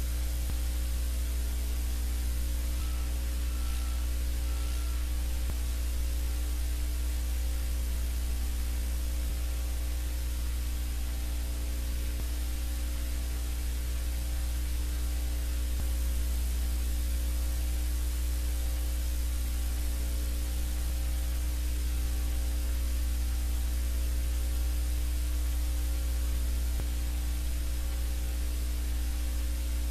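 Steady electrical mains hum with static hiss on the livecam's audio feed, unchanging throughout.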